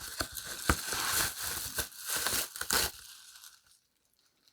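Packaging being crinkled and rustled by hand, with small clicks and taps, stopping about three seconds in.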